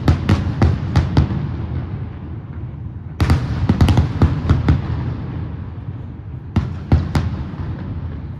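Aerial firework shells bursting in quick volleys of sharp bangs, three clusters a few seconds apart, with a low rumble between them.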